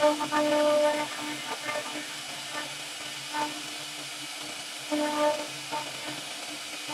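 CNC router spindle running with its bit cutting into a wooden door panel: a steady hum over a hissing cutting noise, swelling louder at the start and again about five seconds in.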